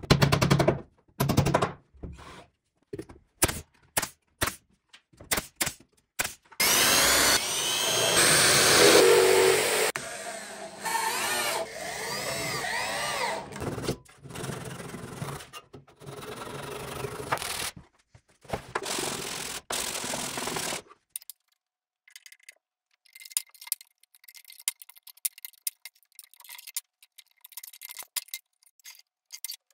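Hand tools on an old wooden drawer: scattered knocks and taps, then from about seven seconds in a handsaw scraping across the wood for several seconds. After that come shorter bouts of scraping, and in the last third only faint light clicks.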